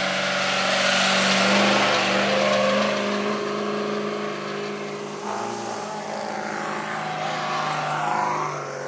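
Trophy Truck engine accelerating away from a pit stop on a dirt track, with the hiss of tyres throwing up dirt. It is loudest about a second and a half in, then slowly fades as the truck drives off.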